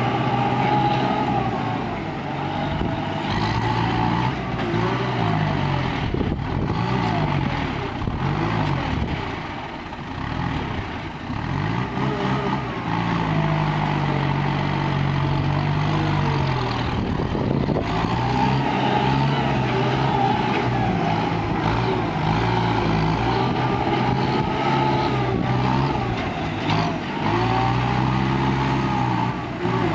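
Diesel engines of a ten-wheel dump truck stuck in mud and a farm tractor pushing behind it, running under load and revving so the pitch rises and falls repeatedly. The level dips briefly about ten seconds in.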